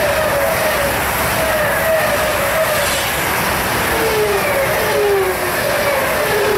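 A train running past on the rails: a steady loud rush of wheels on track, with short squealing tones that fall in pitch, repeating about twice a second.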